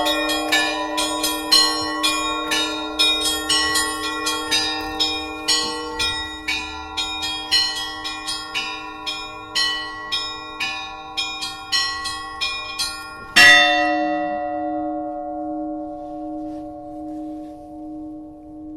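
Church bells rung by hand in a quick pattern: smaller bells struck about two or three times a second over a steady deep bell tone. About 13 seconds in comes one loud final stroke, after which the bells ring out and fade with a slow pulsing hum.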